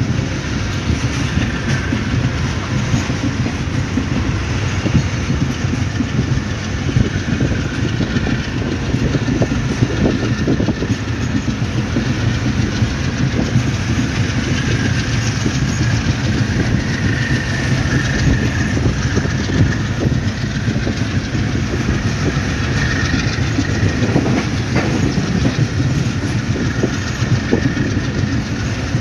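Passenger train running along the track, heard from on board: a steady rumble of the coaches with wheels clattering rhythmically over the rail joints.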